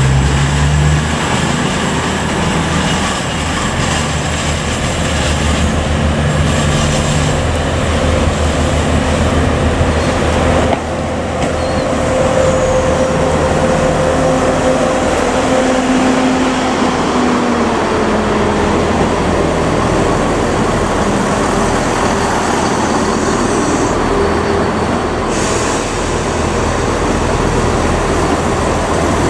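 A train running, a steady rushing drone with a few held tones that shift slowly in pitch, one falling a little about two-thirds of the way through.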